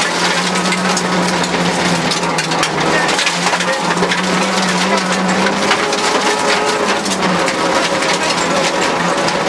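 Rally car engine running hard under load, heard from inside the cabin, with gravel and stones rattling and pinging against the underbody as it drives a dirt stage. The engine note holds fairly steady and dips briefly a few times.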